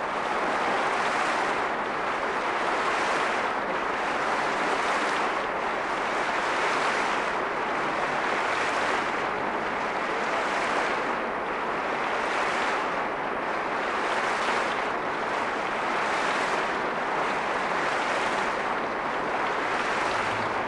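Large audience applauding steadily, the dense clapping swelling and easing about every two seconds.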